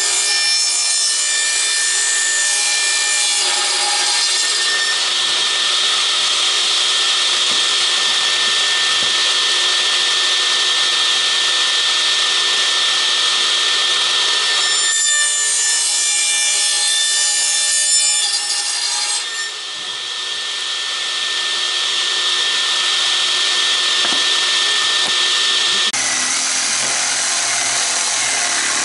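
Electric saw cutting a curve through plywood: a loud, steady sawing noise over the motor's whine. It dips briefly about two-thirds of the way through and picks up again, and a few seconds before the end a different, slightly quieter power-tool sound takes over.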